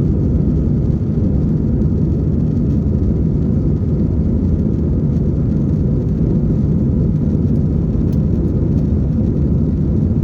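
Airliner engines and rushing air making a steady low rumble during the climb after takeoff.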